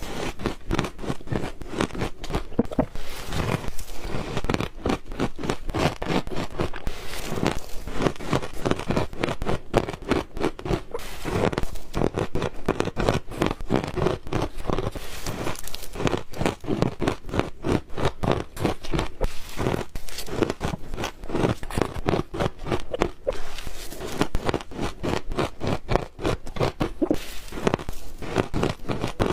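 Ice being bitten and chewed close to the microphone: a dense, unbroken run of sharp crunches and cracks.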